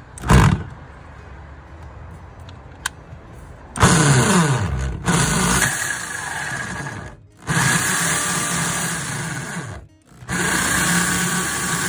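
Corded electric drill with a hole saw cutting through a fiberglass boat hull: a short blip of the motor just after the start, then three long runs from about four seconds in, stopping briefly twice, its pitch dropping each time the saw bites into the fiberglass.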